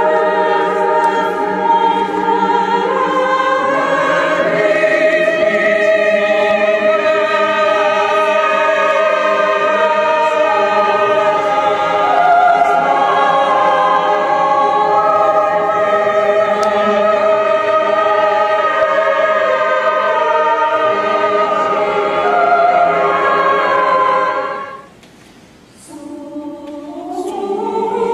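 Mixed choir singing sustained chords in several parts. The singing breaks off about 25 seconds in and starts again a second or so later.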